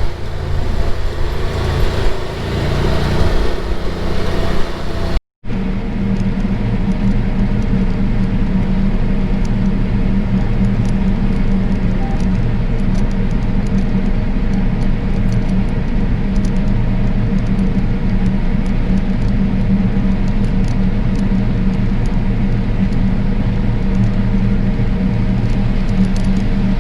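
Large farm machine's engine running under way: uneven and changing for the first five seconds, then, after a brief cut, a steady, even drone with a constant engine note.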